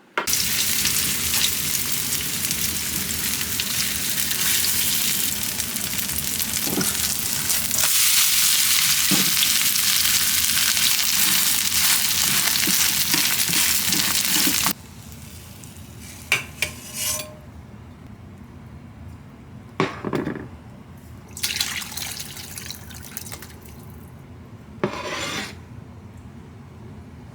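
Food sizzling in a hot pan, a loud steady hiss that cuts off abruptly about halfway through. A quieter stretch follows with a few short kitchen clinks and scraping noises.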